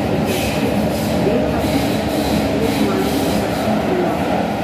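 Athens Metro Line 3 train running, heard from inside the passenger car: a steady rumble and rush of wheels on rail and the running gear.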